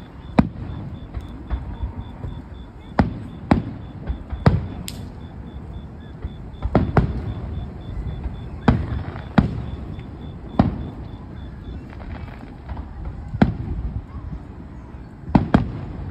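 Aerial firework shells bursting at a distance: about a dozen sharp booms at irregular intervals, each trailing off in a short echo, over a low rumble.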